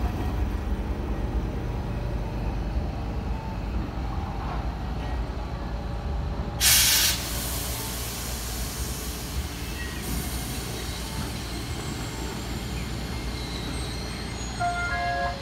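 Streetcars moving through a station square: a steady low rumble, with a short loud hiss of air about seven seconds in, typical of a tram's air brakes venting. A few brief high tones follow near the end.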